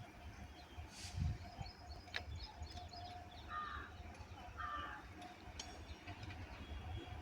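A crow cawing twice, about a second apart, midway through, over faint chirping of small birds and a low background rumble.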